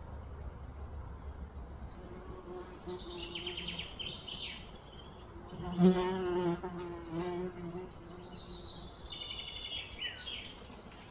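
Outdoor ambience of fast, high, buzzing trills and chirps, typical of insects or small birds. About six seconds in comes a louder, wavering pitched call lasting a second or two, from an unidentified source.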